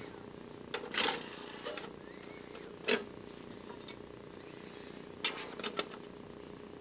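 Soft clicks and small knocks from operating a Philips CDR-770 CD recorder: buttons pressed, the disc tray opening and a CD being handled. The sharpest click comes about three seconds in, and a cluster of them comes near the end.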